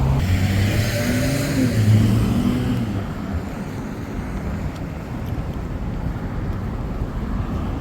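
Car engine and road noise, with the engine's pitch shifting and the sound louder in the first three seconds, then settling into a quieter, steady rumble.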